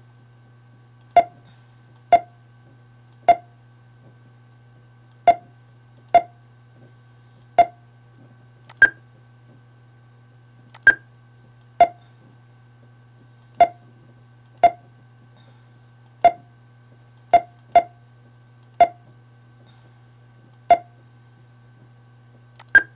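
Computer mouse clicked one point at a time, short sharp ticks at an irregular pace of about one a second, some higher-pitched than others. A steady low hum runs underneath.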